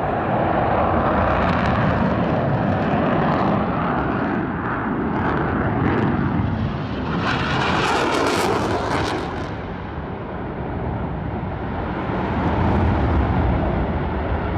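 Airplane flying past with a loud, continuous engine roar that swells and fades. A sharper hiss joins it for a couple of seconds around the middle.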